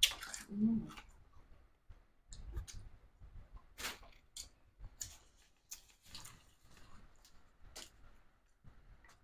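Scattered mouth clicks and smacks of people eating fried fish at the table, with a brief murmured vocal sound just under a second in.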